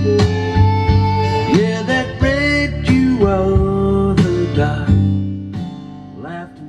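A song broadcast on FM radio and played through a Pioneer SX-780 stereo receiver: guitar-led music with singing, fading out near the end.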